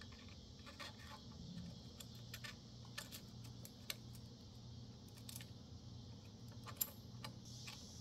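Light, scattered metal clicks and ticks as a cam sprocket and timing chain are handled by hand and worked onto the camshaft of an X-Pro Storm 125cc big-bore engine. The timing chain is too tight for the sprocket to go on easily. A steady low hum runs underneath.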